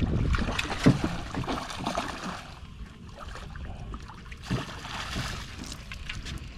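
Scattered knocks and clatter of handling on a small boat, over a low steady rumble.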